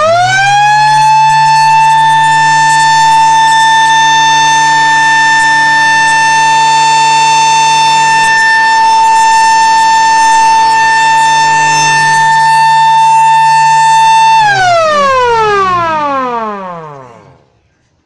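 Small electric motor-driven mechanical siren winding up within about half a second to a steady high wail, holding one pitch for about fourteen seconds, then winding down in a long falling glide as the rotor coasts to a stop.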